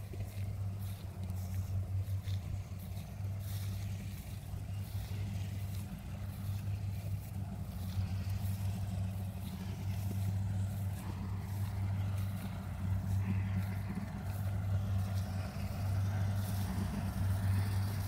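Kubota combine harvesters running steadily in a rice field, a continuous low engine hum that grows slightly louder in the second half.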